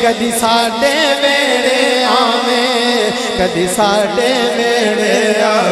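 Male voice singing a Punjabi naat through a sound system, over a steady held note.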